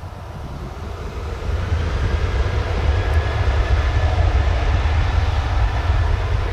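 Boeing 737-800's CFM56-7B turbofan engines running loud as the airliner rolls out on the runway after touchdown, with a deep rumble underneath. The sound grows louder about a second and a half in, then holds steady.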